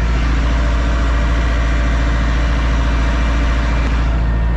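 Massey Ferguson tractor's diesel engine running steadily under load, heard from inside the cab, with a strong low hum.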